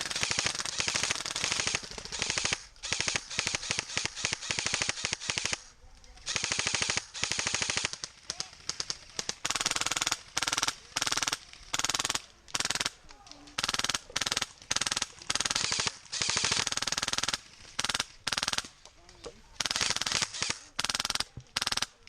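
Airsoft guns firing full-auto in repeated short bursts of rapid clicking shots, with one longer burst at the start and many bursts of under a second later on.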